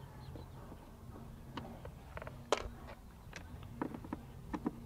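Hand screwdriver working the screws out of a plastic RV door catch: scattered small clicks and taps of metal on screw and plastic, the sharpest about two and a half seconds in, over a low steady hum.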